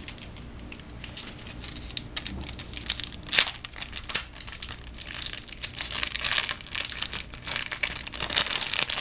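Small clear plastic packaging bag crinkling and rustling as it is handled and opened by hand, with a single sharp click about three and a half seconds in. The crinkling gets busier in the second half.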